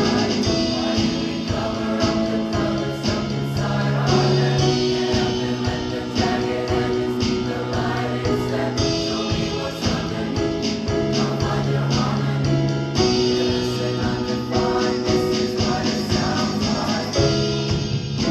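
Choir singing long, held chords in a pop song arrangement over a steady percussive beat.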